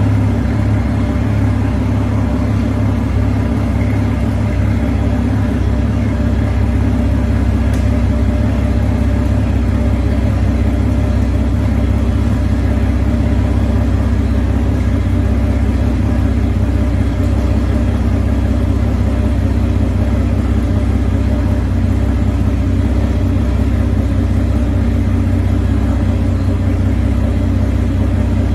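Twin Suzuki 350 V6 outboard engines running steadily on the trailer, fed water by a hose.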